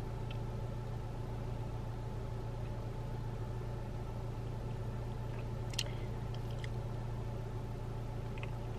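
Car engine idling, heard from inside the cabin as a steady low hum, with a light click a little past halfway.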